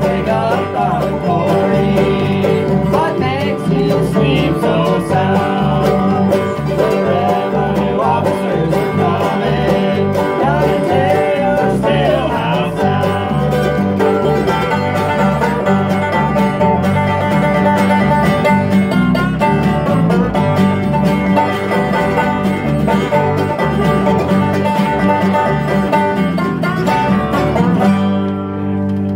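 Live acoustic bluegrass band playing: open-back banjo rolls, mandolin and acoustic guitar strumming over a bouncing low bass line.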